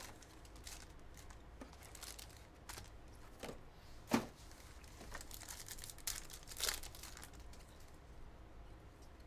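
Trading card packs being torn open and their wrappers crinkled by hand, with cards handled: scattered short crackles and rustles, the loudest about four seconds in.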